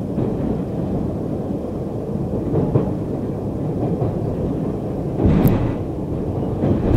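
Steady rumble of an MBTA Orange Line subway car running at speed on an open-air section of track, heard from inside the car, with one brief louder rush about five seconds in.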